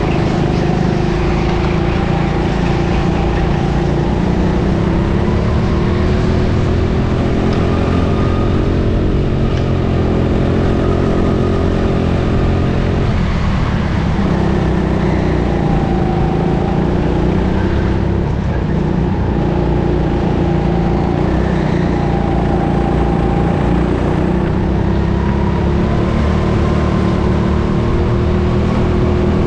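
Onboard sound of a go-kart engine running under load as the kart laps an indoor track. Its pitch rises and falls with the throttle through corners and straights, with no break.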